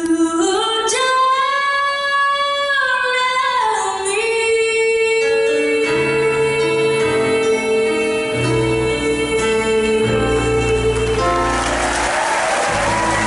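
A woman sings live with a country band, holding two long sustained notes over the backing. Near the end the song closes and applause breaks out in the hall.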